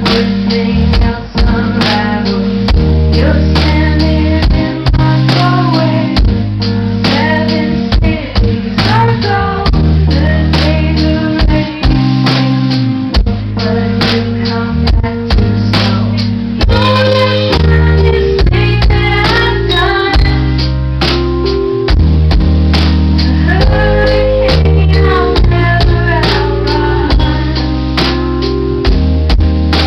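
Live band playing: a woman sings lead over a Nord Electro 3 keyboard, guitar and a drum kit.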